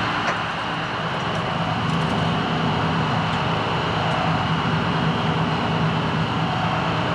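A fishing boat's engine running steadily, a low constant hum under a broad rushing noise.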